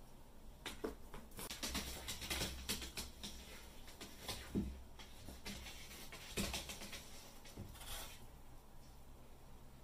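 A cat's claws scratching and pattering against a wall and door in two quick bouts, with a short sound falling in pitch about halfway through.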